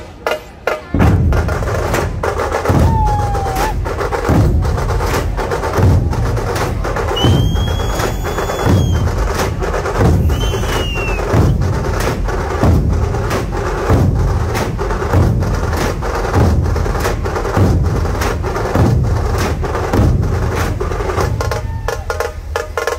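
Dhol-tasha ensemble playing: a mass of barrel-shaped dhol drums beats a heavy bass stroke about every second and a quarter, under a fast, unbroken clatter of stick strokes from tasha drums. The full beat kicks in about a second in and thins out near the end, with a few short whistles sounding over it in the middle.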